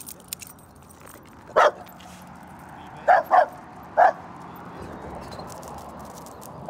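A dog barking: one short bark about one and a half seconds in, then three more close together between three and four seconds in.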